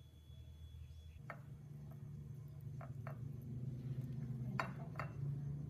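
About five light, irregularly spaced knocks of kitchen utensils over a low steady hum that gets louder about a second in.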